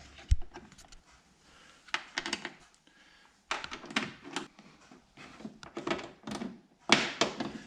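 Irregular clusters of small hard clicks, taps and rattles from hands and parts working inside a car door, with one dull thump about a third of a second in.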